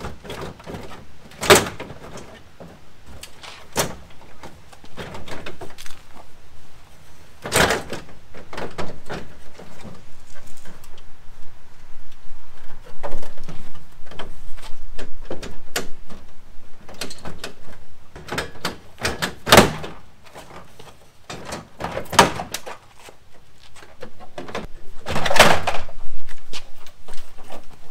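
Toyota Tundra's plastic front grille being unclipped and pulled off by hand: scattered clicks, knocks and rattles, with sharp snaps as its retaining clips let go, the loudest about 8, 20 and 25 seconds in.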